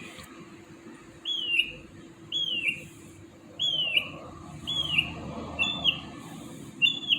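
A bird repeating a short, down-slurred whistled call about once a second, six times.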